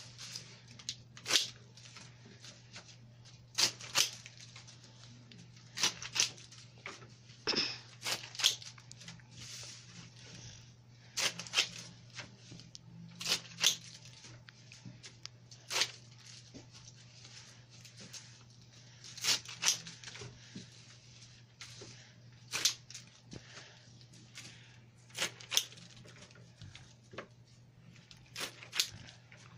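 Leaves and thorns being stripped from long rose stems by hand: an irregular run of short, sharp snaps and rustles, about one every one to two seconds, over a steady low hum.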